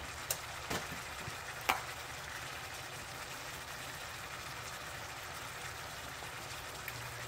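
Ground beef sizzling steadily in a hot stainless-steel skillet, with a few light clicks in the first two seconds and a low hum coming in near the end.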